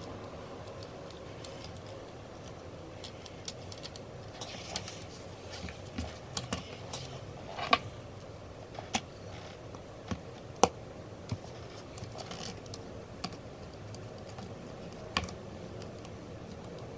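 Scattered sharp plastic clicks and taps from a Glorious Model O gaming mouse being handled and its shell pressed back together, about a dozen at irregular intervals, the loudest two a little past the middle.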